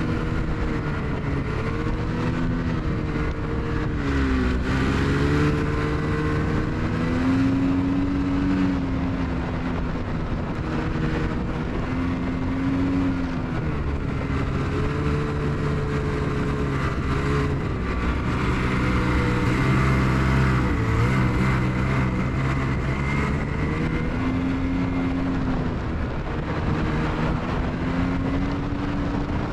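Ski-Doo Expedition Xtreme snowmobile engine running under way, its pitch dipping and rising again several times as the throttle eases and opens, over a steady rushing noise.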